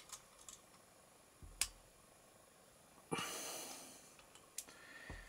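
Faint clicks and taps of a small screwdriver and metal parts as a grub screw in a model locomotive wheel is turned and tightened, the sharpest click about one and a half seconds in. About three seconds in there is a soft hiss lasting about a second.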